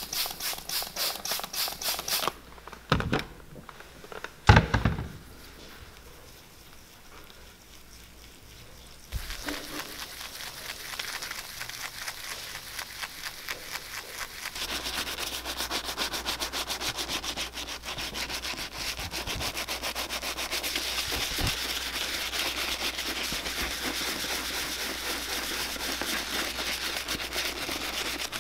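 Horsehair dauber brush scrubbing saddle soap into a lather, with rapid back-and-forth bristle strokes in the tin and on a leather boot upper to clean out dirt. Two sharp knocks come a few seconds in, and after a quieter stretch steady scrubbing starts again about nine seconds in.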